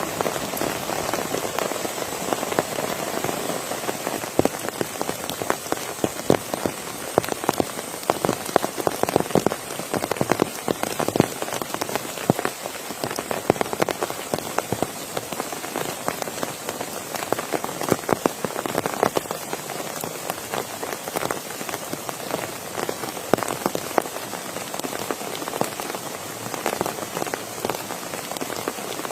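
Steady rain falling, with many close drops striking a surface as a dense run of sharp little hits.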